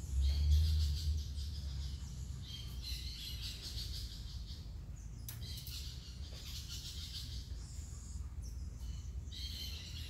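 High-pitched chirping outdoors, in repeated bursts of about two seconds each, over a steady low rumble that swells briefly about half a second in.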